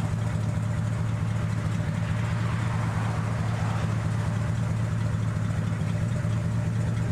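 An engine idling steadily, a low, even hum. A rush of noise swells and fades around the middle.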